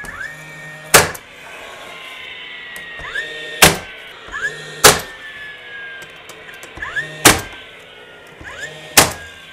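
DeWalt cordless 15-gauge angled finish nailer firing five nails into a wood furring strip to tack it to a stud, each shot a sharp crack. A motor whine rises before the shots and sinks slowly in pitch between them.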